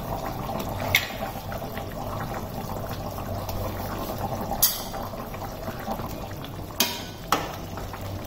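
Fish curry bubbling steadily as it boils in a pan, with several sharp clicks, the last two near the end as a ladle goes into the pan to stir.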